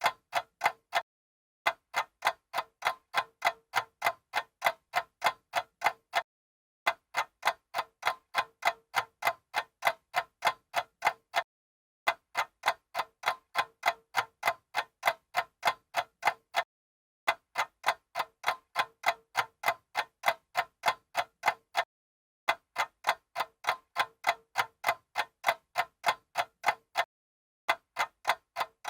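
Old mechanical stopwatch ticking fast and evenly, about four to five crisp ticks a second, in runs of about five seconds each broken by a brief pause.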